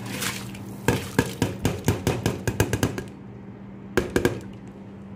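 Washed rice poured into a stainless steel pot of boiling water, followed by a quick run of about a dozen sharp knocks against the pot, then a few more about four seconds in. A steady low hum runs underneath.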